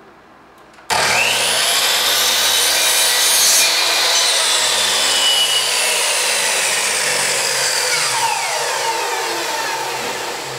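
Electric compound miter saw switching on about a second in with a rising whine, running loud and steady while cutting stained oak dowels, then winding down with a falling whine near the end.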